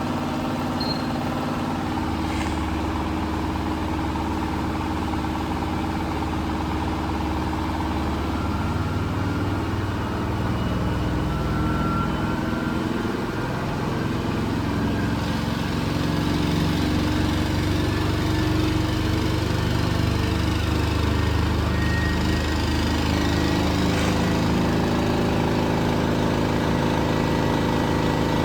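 Miele Professional laundry machine running, a steady motor hum whose pitch shifts around the middle and which grows slightly louder about halfway through.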